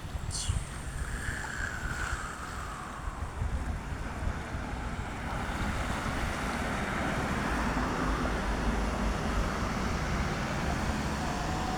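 Wind buffeting the microphone with a heavy low rumble, over a rushing outdoor noise that swells in the second half.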